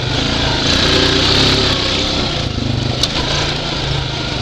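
2012 Honda Rancher 420 ATV's single-cylinder engine running steadily as the quad is ridden along a trail, with one sharp click about three seconds in.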